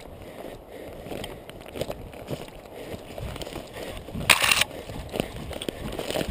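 Footsteps of a runner moving through forest undergrowth, twigs and brush crackling underfoot in an irregular pattern, with one brief loud rustle a little over four seconds in.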